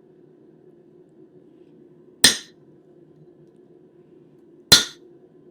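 Two hard hammer blows on a steel punch, about two and a half seconds apart, each a sharp metallic strike with a short ring, driving the slug out of hot steel over the anvil's pritchel hole. A faint low steady hum runs underneath.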